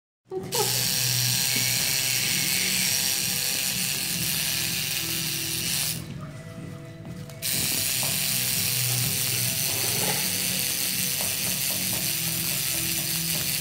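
Electric tattoo machine buzzing steadily. It stops for about a second and a half around six seconds in, then buzzes again.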